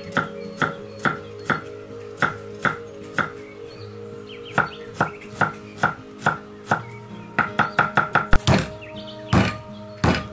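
Cleaver chopping red onion on a wooden cutting board: evenly spaced chops about two to three a second, a short pause, then a quick run of faster chops, and a few heavier knocks near the end.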